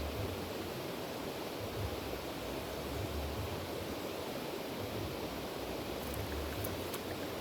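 River water rushing steadily, with low rumbles coming and going beneath it.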